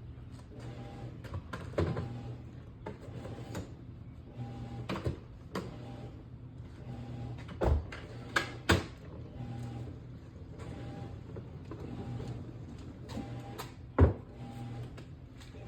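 Sharp plastic knocks and clicks of Toughbuilt StackTech toolbox units being handled and stacked, a few seconds apart, the loudest near the end. Underneath, a washing machine runs with a steady hum.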